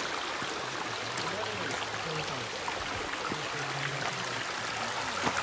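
Shallow mountain stream running over rocks, a steady wash of trickling water.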